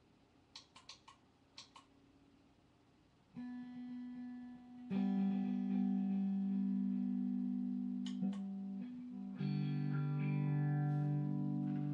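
Electric guitar played through an Eventide TimeFactor effects pedal. A few faint string clicks come first; then, from about three seconds in, held notes and chords ring on steadily, a new one coming in sharply twice.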